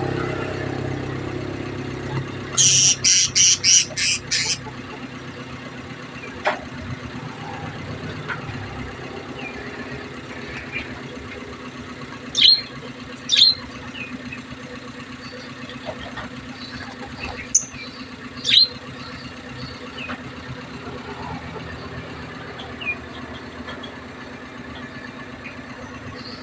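Lovebirds giving shrill, high chirps: a fast run of about seven near the start, then scattered single calls. Under them runs a steady low hum that fades over the first couple of seconds.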